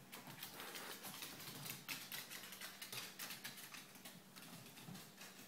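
Irregular rapid clicking, tapping and scrabbling of a Chihuahua's and a cat's claws and paws on a hardwood floor as they scuffle, with one sharper knock near the end.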